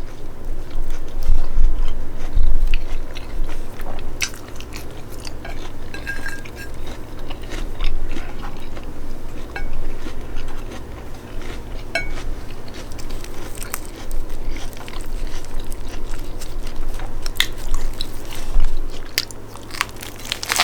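Close-up chewing and biting of a lettuce wrap filled with chicken, black beans, rice and avocado: crisp lettuce crunching among wet mouth clicks, in irregular bites and chews.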